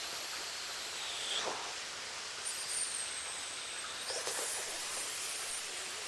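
Steady rushing hiss of a small waterfall falling onto rock. A few faint high whistling sounds ride over it, one falling in pitch about a second in.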